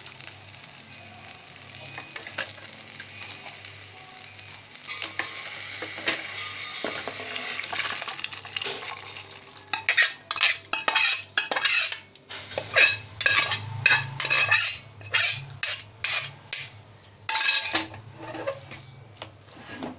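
Spice paste sizzling steadily in hot oil in a pan. About halfway through, vegetables and soaked pulses in liquid are added and stirred in with a metal spoon, giving a run of loud scraping, splashing strokes over the sizzle.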